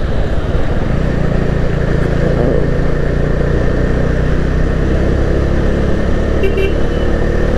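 Motorbike engine running steadily while riding in city traffic, with road noise, and a short high horn toot about six and a half seconds in.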